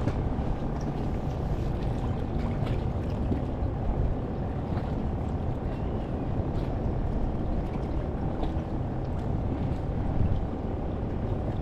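Steady low rumble of wind and choppy water around a small inflatable boat, with a few faint ticks.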